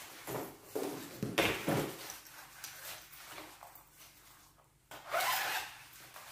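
Several short rubbing, rustling noises in irregular bursts, with a brief total dropout a little past the middle.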